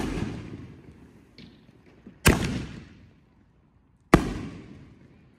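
Consumer aerial fireworks fired from tubes on the ground: three sharp bangs about two seconds apart, each followed by a long fading echo, with a faint pop between the first two.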